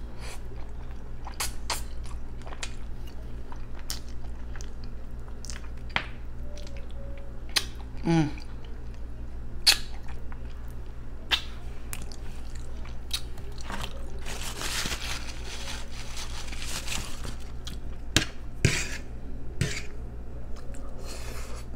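Close-miked chewing and mouth noises of someone eating sticky pig feet by hand, with scattered wet clicks and smacks over a steady low hum.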